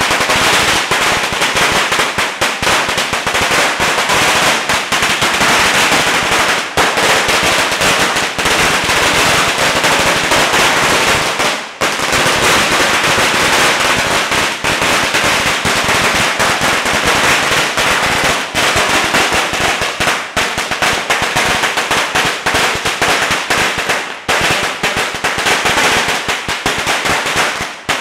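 A long string of Chinese firecrackers going off in a continuous, rapid crackle of bangs, with two brief dips in the barrage.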